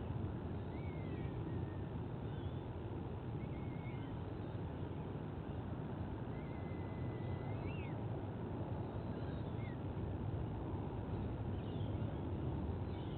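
Steady low outdoor rumble with a few faint, thin, high calls from birds, short chirps and one longer drawn-out call about six to eight seconds in that rises at its end.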